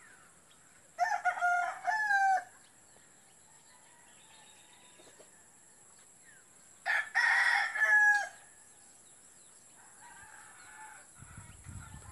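A rooster crowing twice, each crow lasting about a second and a half, the two crows some five seconds apart.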